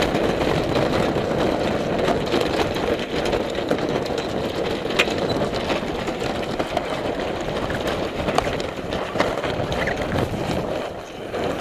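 Sailboat's engine running steadily under strong wind buffeting the microphone, with a few short clicks and rattles from the rigging as the mainsail is lowered.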